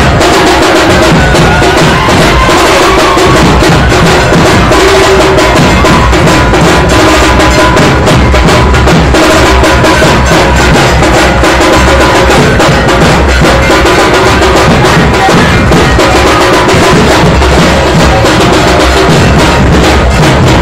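Dhol and tasha drums played loud and fast without a break, a dense run of rapid strokes over a deep booming beat.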